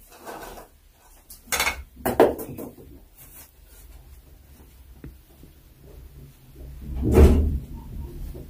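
Handling noise: several knocks and bumps of things being moved, two sharp ones about two seconds in and the loudest, longer bump about seven seconds in.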